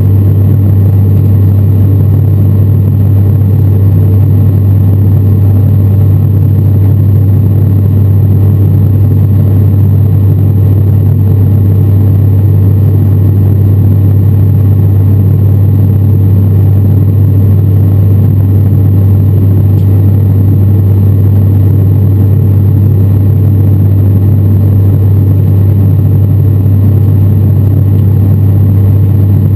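Steady turboprop drone heard inside the cabin of an ATR 72-600 climbing after takeoff: the Pratt & Whitney PW127M engine and its six-blade propeller make a loud, low, even hum with a rushing noise above it.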